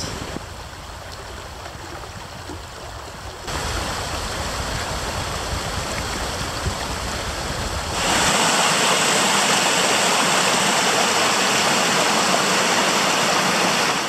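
River water rushing over rocks, a steady roar. It steps up in loudness abruptly twice, about three and a half seconds and about eight seconds in, ending loud and hissing.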